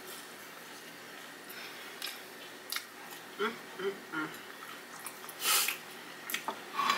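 Close-miked mouth sounds of a person finishing a last mouthful of Hot Cheeto fried pickle: soft chewing with wet clicks and smacks from about two seconds in, three short low hums in the middle, and a breathy rush about five and a half seconds in.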